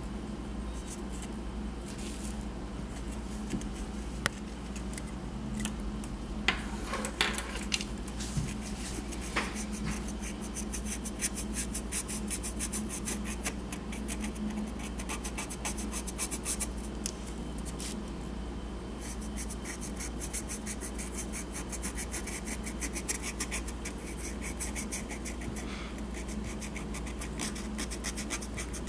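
Felt-tip marker scratching and rubbing over the ridged surface of a seashell as it is coloured in, in many quick back-and-forth strokes that grow denser about a third of the way in.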